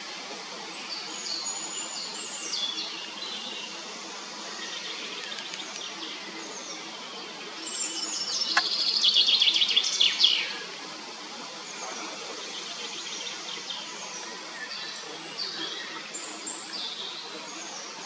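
Wild songbirds singing and calling over a steady background hiss. About eight seconds in, one bird sings a louder song of rapid notes lasting about two and a half seconds.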